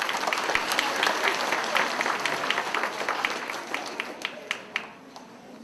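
An audience of children and adults applauding, with dense clapping that thins out near the end to a few separate claps.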